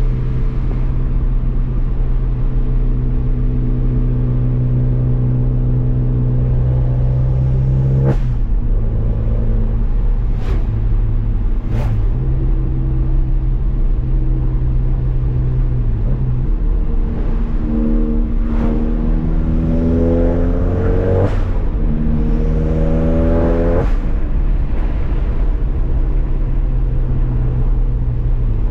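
Turbocharged 2.0-litre four-cylinder engine of a stage 2 tuned VW Golf GTI Mk7 with an aftermarket catback exhaust. It runs at a steady note at first, then in the last third pulls hard twice, the revs climbing and dropping sharply at each upshift.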